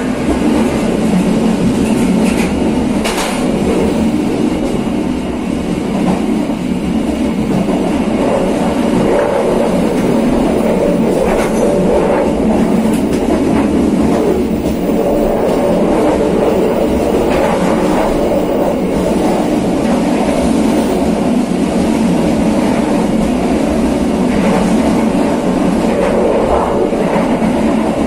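KA Serayu passenger train running along the line, a steady loud rumble of wheels on the rails with a few sharper clacks scattered through it.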